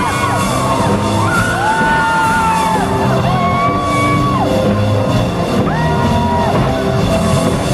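Live folk-rock band playing loudly, with a drum kit hit hard and steadily. Long held voices rise and fall above it every second or two.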